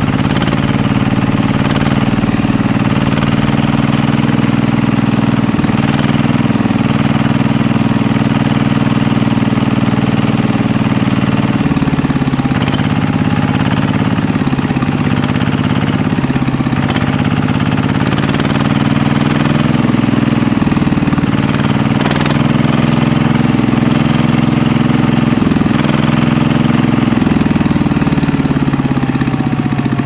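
DIY miniature power tiller running steadily as its iron cage wheels drive a small plough through sand: an even, engine-like hum with a fast pulse that shifts a little in pitch every few seconds.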